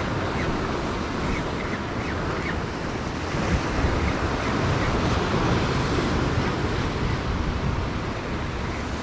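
Sea surf breaking and washing against a rocky shoreline, a steady rushing noise, with wind buffeting the microphone.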